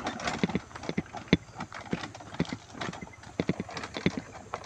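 Irregular hard knocks and clatter, several a second and uneven in loudness, with one sharp knock about a second in.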